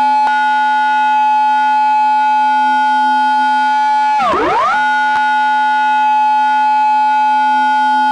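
Japanese police car siren in its intersection-entry mode: a loud, steady high tone that swoops sharply down and back up once, about four seconds in.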